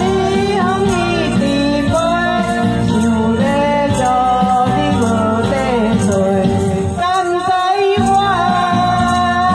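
A woman sings into a microphone over amplified backing music, with handheld ring tambourines jingling along to the beat. The bass of the accompaniment drops out for about a second near the end.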